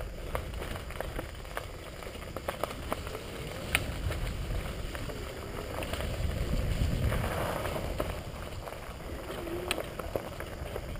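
Bicycle riding over a rough, leaf-strewn dirt trail: a steady low rumble of tyres and wind noise on the microphone, with scattered clicks and rattles from the bike going over bumps.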